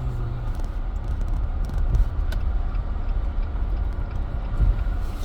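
Steady low road rumble of a car driving along a highway, tyre and engine noise with no change in pace.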